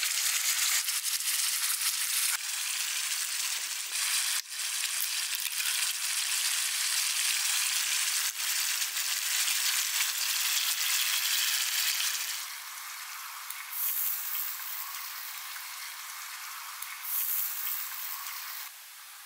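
Sausages, peppers and eggs sizzling in oil in a pan over a wood fire: a dense crackling sizzle that drops to a quieter sizzle about twelve seconds in.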